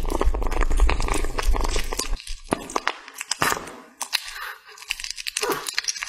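A kitten chewing and licking raw meat: close, wet, clicking eating sounds, dense for about two seconds and then sparser, separate smacks.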